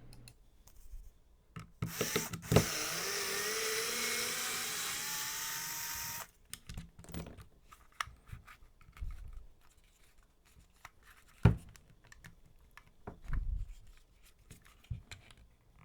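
A small power tool's motor runs for about three and a half seconds, rising in pitch as it speeds up, then stops abruptly. Scattered clicks and knocks of tools being handled come before and after, with one sharp knock about eleven seconds in.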